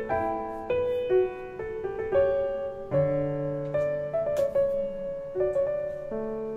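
Slow piano music, single notes and chords struck about every half second and left to ring. A light clack about four and a half seconds in.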